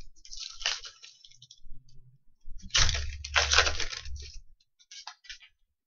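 Crinkling and rustling of trading-card packs and cards being handled, in two bouts: a short one about half a second in and a longer, louder one from about three seconds in.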